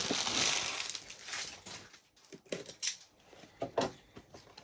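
Plastic wrapping on trading card packaging being torn open and crinkled, loudest in the first second and a half, followed by a few light taps and clicks of handling.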